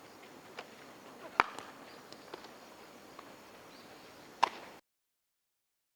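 Sharp cracks of baseballs striking, two loud ones about three seconds apart with fainter smacks between, over a faint open-air background. The audio cuts off abruptly near the end.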